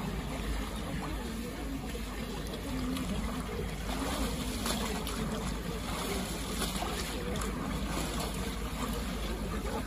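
Water sloshing and splashing as a person wades into a cold-water bathing pool and dunks, over a steady outdoor rumble and a faint murmur of voices.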